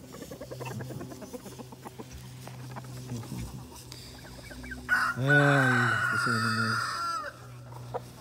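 Poultry calling: soft clucking, then one loud drawn-out call about five seconds in that lasts about two seconds and falls in pitch at the end.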